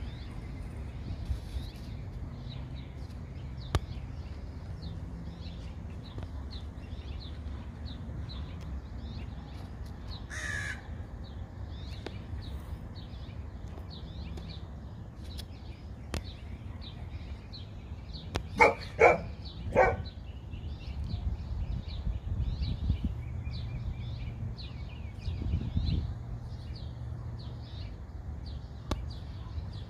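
Outdoor ambience of continuous high chirping over a low rumble. About two-thirds of the way through, a bird gives three loud calls in quick succession.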